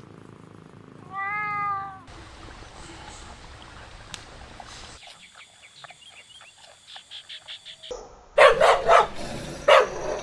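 A domestic cat gives one meow about a second in. Later comes a rapid run of short chirps, then near the end three loud, harsh blasts of noise that are the loudest sounds here.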